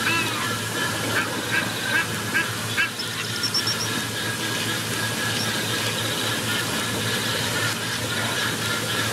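Birds calling with short honking calls, about two or three a second through the first three seconds, over a steady hiss of background noise. After that only the hiss is left.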